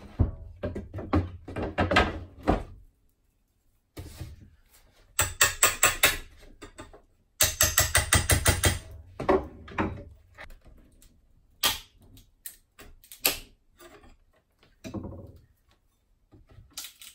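Two quick runs of hammer taps on a metal pry tool driven into a wooden box frame, about six taps a second, followed by scattered single knocks and wood clatter as the old moldings are worked loose.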